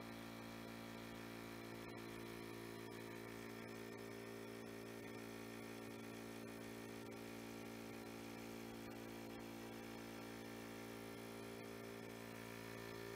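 Steady low electrical hum with several fixed tones, unchanging throughout.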